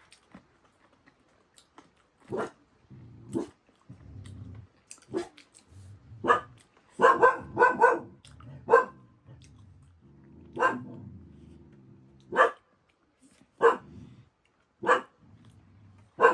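A dog barking in short, separate barks, with a quick run of about four barks about seven seconds in and low growling between the barks.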